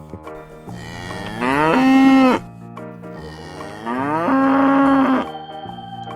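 Cow mooing twice: two long moos, each rising in pitch and then holding steady.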